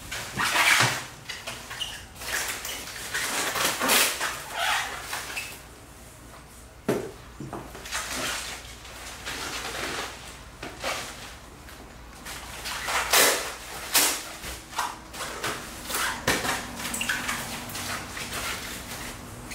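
Bubble wrap and cardboard packaging rustling and crinkling in irregular bursts as they are handled, loudest about a second in and again around the middle.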